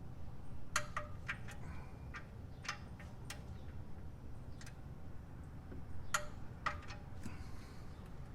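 Sharp metallic clicks from a wrench's ratchet mechanism as the oil drain plug is tightened back in, coming irregularly in short clusters and pairs.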